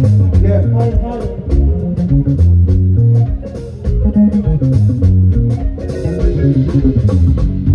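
Music with electric guitar, bass guitar and drums playing a steady beat.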